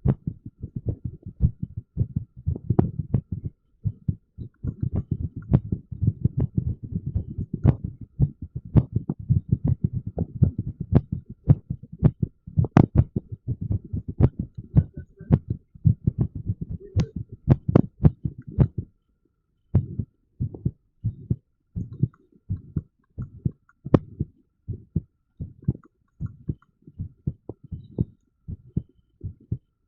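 Heartbeat beating at an uneven rhythm: an irregular heartbeat. Each beat is a low thump with a sharp click. A low rumble fills the gaps for the first two-thirds, then the beats stand apart in quiet.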